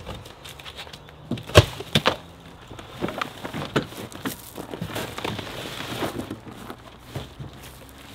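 Unpacking a large portable generator from its cardboard shipping box: cardboard flaps and plastic wrap rustling and crinkling, with scattered knocks as the heavy machine is pulled out over the box's wood base. One sharp knock about a second and a half in is the loudest.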